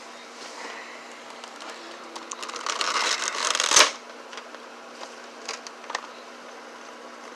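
Hands handling an action-figure package: scattered light clicks, then about two seconds of rustling and crinkling that builds and ends in a sharp click near the middle.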